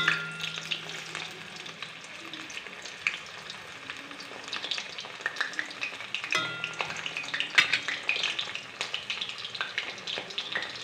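Halved potatoes frying in hot oil in a kadai: a steady sizzle dotted with irregular small crackles and pops.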